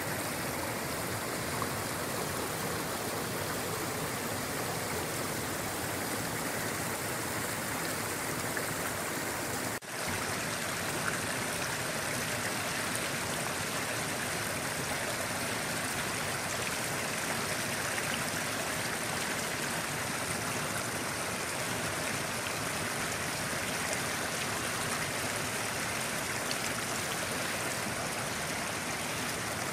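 Mountain stream rushing over rocks, a steady unbroken flow of water noise, with a momentary dropout about ten seconds in.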